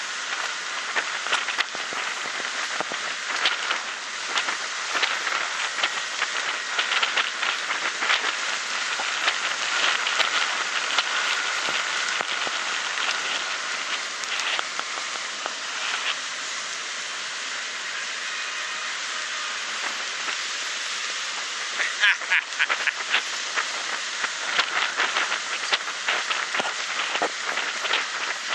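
A ferry boat under way through choppy water: a steady rushing of water along the hull with frequent crackling splashes, busiest about three quarters of the way in.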